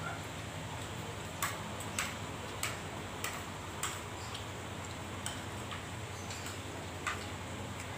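Metal spoon clinking against a plate while eating, about seven sharp ticks at irregular intervals, most of them in the first four seconds, over a low steady hum.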